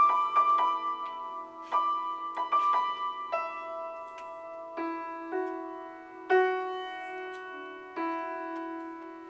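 Piano improvisation in the middle and upper register: a quick run of struck notes for the first few seconds, then slower single notes and chords left to ring and fade.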